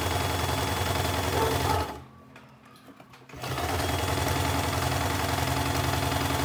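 Sewing machine stitching a three-step zigzag over elastic, running steadily, stopping for about a second and a half at two seconds in, then running again.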